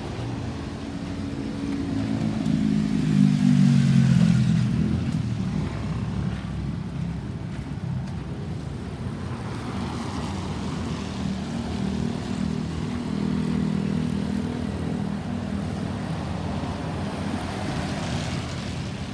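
A motor vehicle engine passes close by, loudest about three to four seconds in, with its pitch dropping as it goes. Another engine hum follows and runs on steadily.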